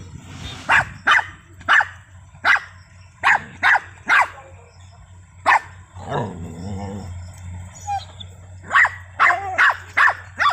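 Dogs barking in short, sharp barks, about a dozen in irregular bursts, with a pause midway before a quick run of barks near the end.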